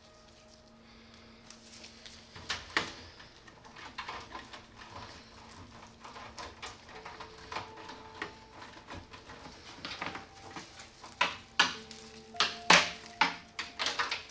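Sharp plastic and metal clicks and knocks of computer parts being handled and fitted during a PC build, scattered at first and coming faster and louder in the last few seconds, over soft background music.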